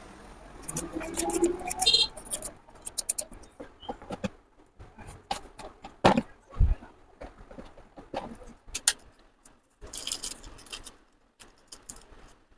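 Irregular clicks and knocks, with one louder knock and a low thud about six seconds in.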